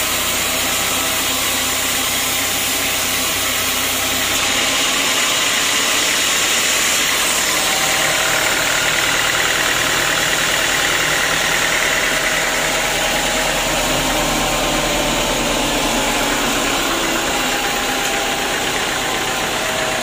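Band sawmill machinery running with a loud, steady mechanical noise. A low hum drops out about four or five seconds in.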